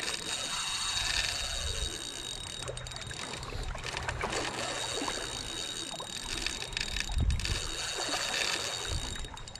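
Spinning reel's drag clicking steadily as a hooked black drum runs and pulls line off, over steady wind and water noise.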